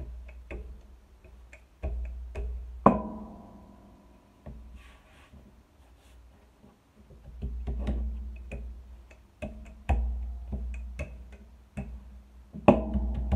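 Wooden rolling pin rolling out lefse dough on a floured board: a low rumble while it rolls, broken by sharp knocks of the pin and its handles on the board. The loudest knocks, about three seconds in and near the end, ring on briefly.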